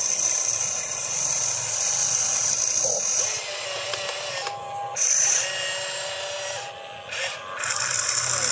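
Radio-controlled model excavator working: its small electric motors whine, with tones that rise and fall as the boom, bucket and turntable move. A steady high-pitched whine drops out briefly twice.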